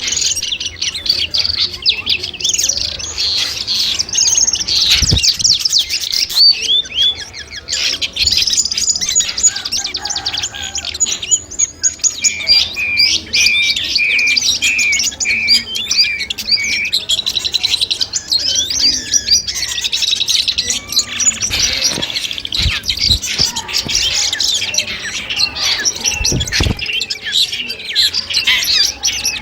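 Long-tailed shrike (cendet) singing: a fast, unbroken stream of varied chirps and trills, with a run of about two clear repeated notes a second around the middle. A few dull low knocks sound under the song.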